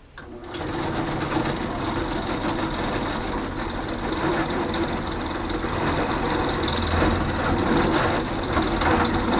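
Electric drill starting up about half a second in and running steadily as it bores a larger hole through a switch plate. It makes a constant motor hum with a high whine over it.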